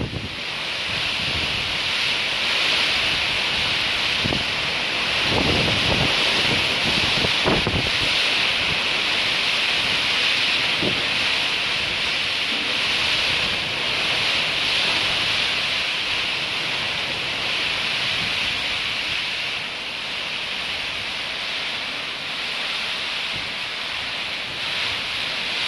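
Heavy rainstorm: a steady hiss of pouring rain and strong wind through the trees. Now and then a gust buffets the microphone with a low thump, mostly in the first half.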